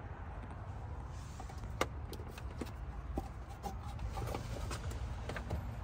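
Scattered light clicks and knocks of a plastic display unit and its wiring harness being handled and fitted into a car's rear center console, the sharpest click a little under two seconds in, over a low steady rumble.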